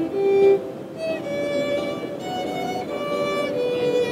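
A white 3D-printed violin bowed in a short melody: a couple of loud notes at the start, then a run of longer held notes.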